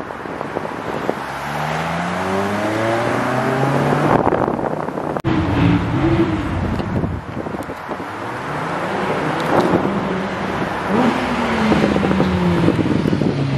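Sports car engines accelerating hard, revs climbing in steps through gear changes. After an abrupt cut about five seconds in, a red Audi R8's V10 revs up and accelerates past, its pitch falling near the end.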